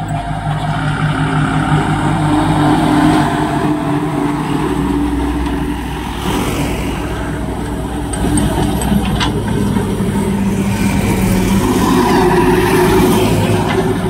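Diesel engines running steadily: a JCB 3DX backhoe loader working at the roadside while heavy trucks drive past it.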